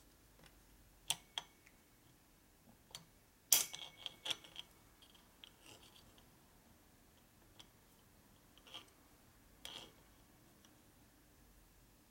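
A few scattered light clicks and taps of small metal parts knocking against an aluminium engine cover as a part is worked onto its shaft and gear by hand. The sharpest click comes about three and a half seconds in.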